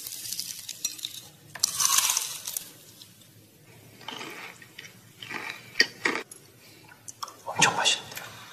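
Crispy fried chicken crackling as it is pulled apart, then a run of sharp clinks and taps of glassware.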